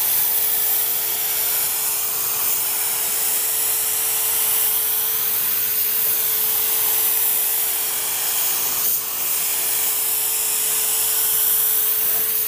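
LVLP spray gun hissing steadily with compressed air while spraying clear coat onto a car door panel, with a thin steady tone underneath. The hiss dips briefly about nine seconds in.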